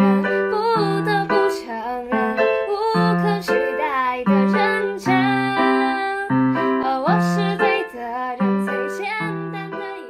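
Background music: a keyboard tune with a moving melody over a repeating bass line.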